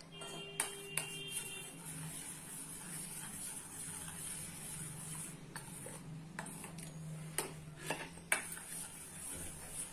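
Spoon stirring hot milk in a pot, clinking against the pot now and then. One clink near the start rings for about a second, and there are several more clinks later on.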